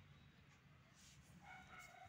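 Very quiet background with a low rumble, and a faint, distant animal call starting about one and a half seconds in.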